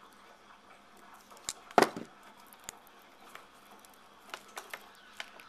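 Diagonal cutters (dykes) biting into the rubber jacket of a copper-core coaxial cable, with one sharp click about two seconds in and a few lighter clicks later as the cable is handled.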